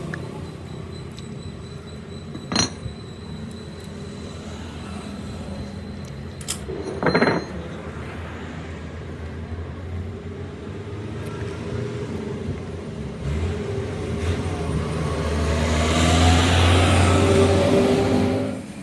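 A motor vehicle engine running steadily, growing louder and rising in pitch near the end, with a sharp metal knock and a clank earlier on.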